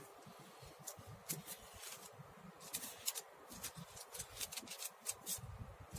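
Marker pen tracing around a paper pattern onto layered fabric: short scratchy strokes that come in quick runs about three and five seconds in, with light rustling of the paper and cloth as the hands move.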